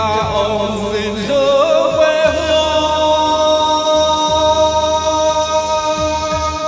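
A man sings into a microphone over a backing track, holding one long note from about a second and a half in.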